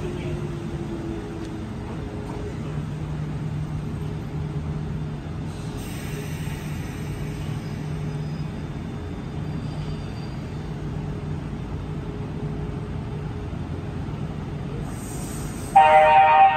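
Kintetsu Urban Liner express train rolling slowly into the platform with a steady low hum, then near the end its horn starts a long blast, suddenly much louder than the train: a service horn sounded for a trainspotter.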